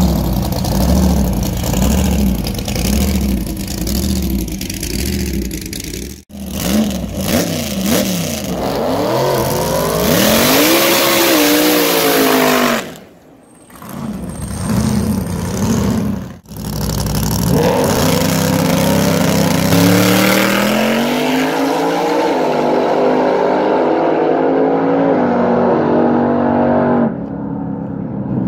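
Drag race car engines, loud and lumpy at first, then accelerating hard. The pitch climbs, drops back at each gear change and climbs again, across several short clips cut together.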